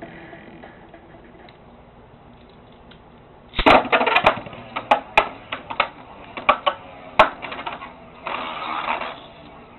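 Beyblade spinning tops launched into a plastic stadium about three and a half seconds in, then a run of sharp clacks as the tops strike each other and the stadium walls, with about a second of scraping near the end.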